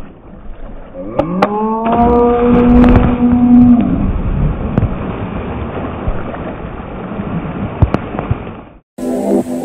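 A person's long held vocal cry that glides up and then holds steady, followed by heavy splashing and churning of swimming-pool water as someone plunges in and thrashes about, which stops abruptly near the end.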